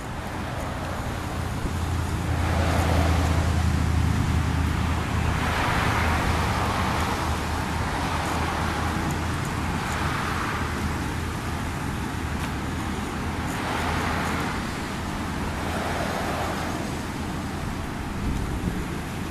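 Road traffic noise: vehicles passing, heard as several slow swells of tyre and engine noise a few seconds apart, with a low rumble strongest a few seconds in.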